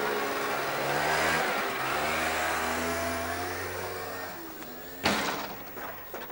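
Moped scooter pulling away: its small engine revs, dips briefly and revs up again, then fades as it rides off. About five seconds in, a single sharp knock.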